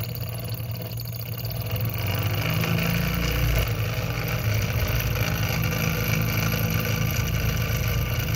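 Small twin-cylinder Stirling engine model running steadily, heated by an alcohol burner, its flywheel spinning a small DC motor used as a generator.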